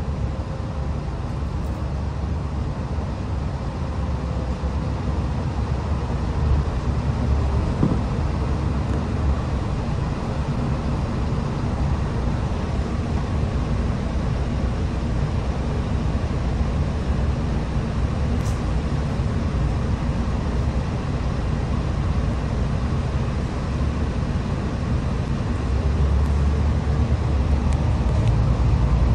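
Inside a double-decker bus: a steady low engine rumble, getting louder near the end as the bus moves off.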